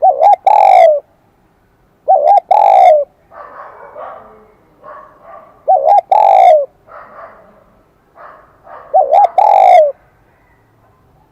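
Spotted dove cooing in the high, bell-like 'kim đồng' voice: four calls, each two quick short notes followed by a longer falling coo, spaced two to three seconds apart. Fainter soft sounds fill the gaps between the later calls.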